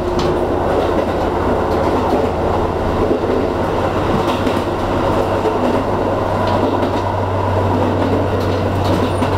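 Diesel railcar running along the line, heard from inside the car: a steady low engine and running drone, with occasional clacks of the wheels passing over rail joints.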